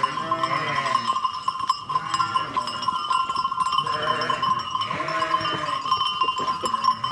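Sheep bleating several times over a steady ringing of livestock bells on the flock.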